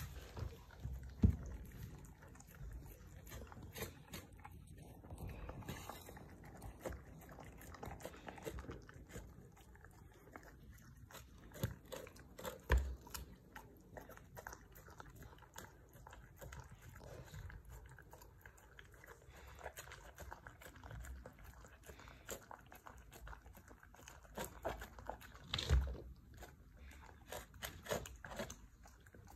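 A husky eating tuna out of a small open tin: a steady run of quiet wet licking and chewing clicks as her tongue works the fish out of the can. There are three louder knocks, about a second in, near the middle and near the end.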